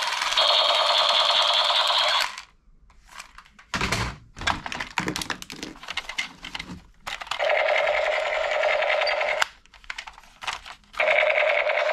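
Toy gun firing its rapid rattling machine-gun sound in bursts of about two seconds, with plastic clicks and a dull thump of handling in the gap between bursts.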